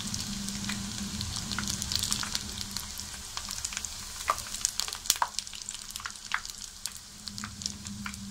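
Chakli spirals of rice-and-lentil bhajani dough deep-frying in hot oil on a low flame: a steady sizzle full of small crackling pops, with a few sharper pops midway, easing slightly toward the end.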